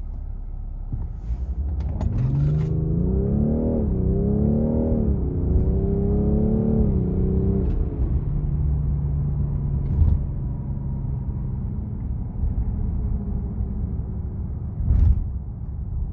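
BMW M550d's 3.0-litre triple-turbo inline-six diesel pulling away and accelerating, its pitch climbing and dipping a few times through gear changes, then settling into a steady low drone while cruising. Two short thumps, about ten and fifteen seconds in.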